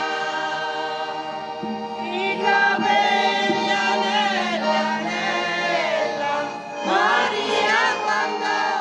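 A small group of women singing a traditional folk song together, holding long notes with sliding, wavering pitch.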